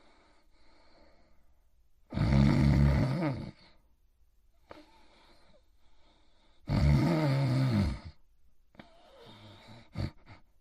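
Snoring: two long, loud snores about four and a half seconds apart, with faint breaths between them and a short sharp sound near the end.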